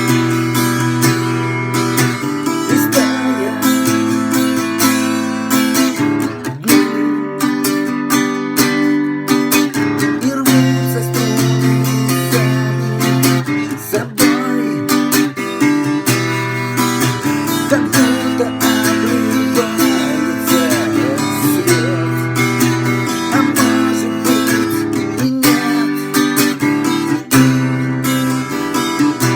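Acoustic guitar music, strummed chords with a steady rhythm.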